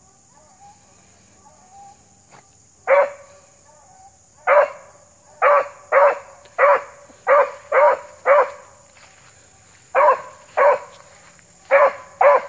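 A beagle giving tongue on a scent line: a run of about a dozen short, sharp barks, all at much the same pitch. They start about three seconds in and come roughly half a second apart, with a short break in the middle.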